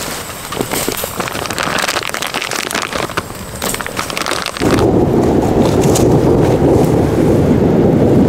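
Thunderstorm rain pattering densely. About halfway through, a much louder, deeper rush starts suddenly and carries on.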